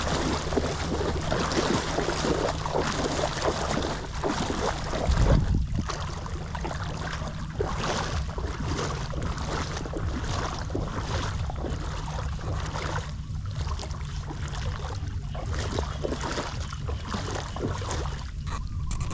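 Wind buffeting the microphone, with a stronger gust about five seconds in, over a steady wash of light rain falling on shallow floodwater.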